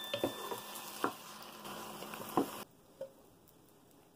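Sliced mushrooms and bell peppers sizzling in a nonstick pan while a wooden spatula stirs them, with a few sharp scrapes and knocks. About two-thirds of the way through, the sizzle stops suddenly, followed by a single light click.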